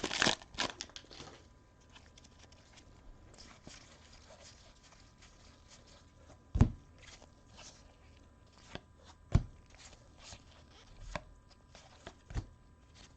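A trading card pack's wrapper crinkling as it is torn open, then quiet handling of the cards with a few sharp taps as cards are set down on a table.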